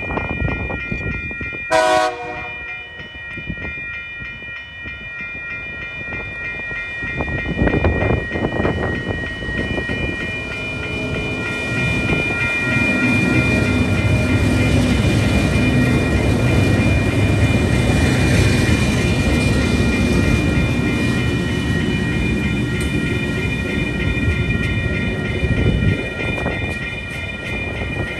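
Level crossing warning bells ringing steadily while a diesel freight train approaches. The locomotive gives a short horn blast about two seconds in. From about seven seconds the diesel locomotives pass close by with a deep engine rumble, followed by container wagons rolling over the crossing.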